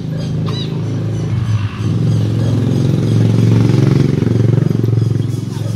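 A motorcycle engine passing close by, growing louder toward the middle and easing off near the end.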